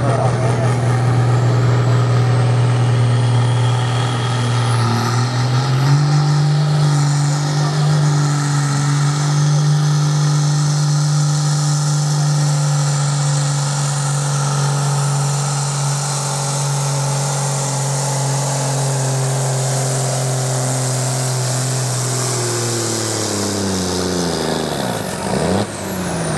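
John Deere tractor's diesel engine working hard under full load while pulling a weight-transfer sled, with a high whine above it. The engine note steps up about six seconds in and holds steady, then falls in pitch over the last few seconds as the engine is pulled down and the run ends.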